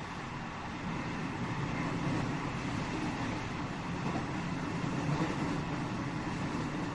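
Running noise heard inside a JR West 207 series commuter EMU motor car: steady rumble of wheels on rail and car body, growing a little louder about a second in.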